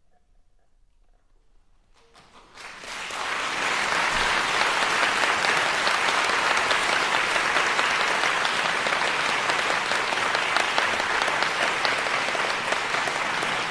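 About two seconds of near silence, then audience applause starts, swells within about a second and continues steadily.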